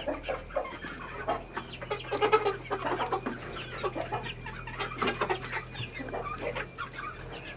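A flock of young desi (native) chickens clucking continually, many short overlapping calls from birds all around.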